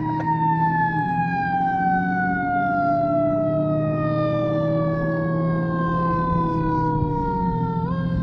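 Fire engine siren: one long wail sliding slowly down in pitch, then winding back up sharply near the end.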